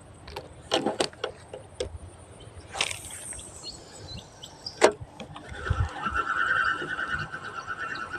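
Spinning rod and reel in use for lure fishing: a few clicks, a swish of the cast about three seconds in, a sharp click of the bail closing near five seconds, then the reel's steady whirr as the lure is wound back in.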